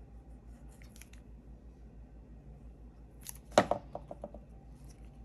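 Cardstock strips and craft tools being handled on a tabletop over a low steady hum. There are faint ticks about a second in, and one sharp knock on the table about three and a half seconds in, followed by a few lighter taps.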